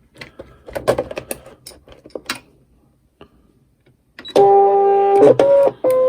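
Clicks and knocks of the cutting mat and machine being handled, then a ScanNCut cutting machine's electronic chime: three steady beeping notes, the first the longest, each cutting off abruptly, as the mat loads.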